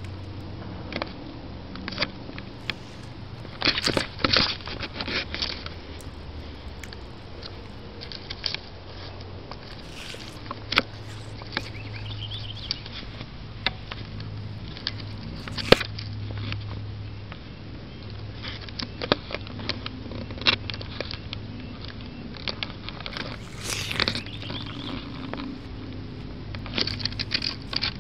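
A calico cat eating a rabbit: irregular crunching, tearing and clicking as it chews the carcass.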